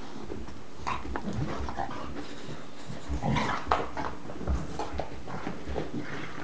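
Two bulldogs play-fighting, making a run of short, irregular dog noises mixed with scuffling. It is loudest about three to four seconds in.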